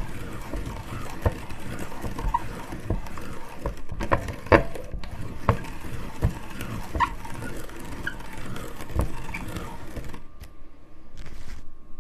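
Hand-cranked meat grinder crushing candy-coated chocolate Smarties, a steady grinding rasp with frequent sharp cracks; the grinding stops about ten seconds in.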